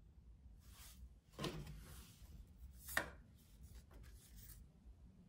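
Quiet room with a few faint rustling and tapping sounds, the clearest a short tap about three seconds in.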